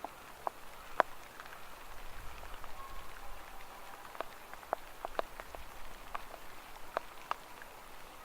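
Rain falling: a light hiss with scattered single drops landing as irregular sharp ticks, one louder drop about a second in.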